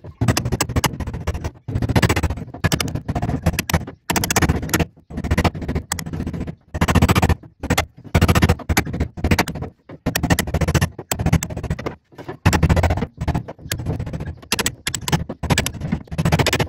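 Hammer striking the sheet-metal cab of a Jeep FC 170 in a long, irregular run of sharp blows, grouped in quick bursts with short pauses between.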